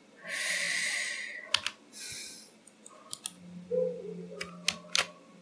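Computer keyboard keys and mouse buttons clicking, a handful of sharp separate clicks spread over a few seconds, after a hissing rush of noise lasting about a second near the start.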